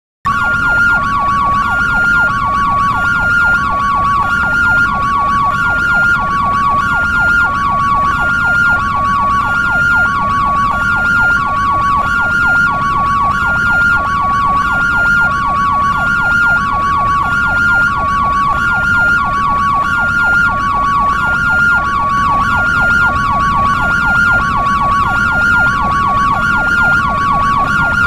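Ambulance siren in a European two-tone hi-lo pattern, alternating between a high and a low note about twice a second, over a rapid yelp warbling underneath. It starts abruptly just after the start.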